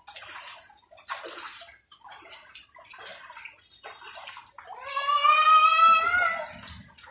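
Bare feet splashing and wading through shallow standing rainwater in irregular sloshes. About five seconds in, a toddler gives one long, high-pitched squeal that rises and then holds for over a second, the loudest sound here.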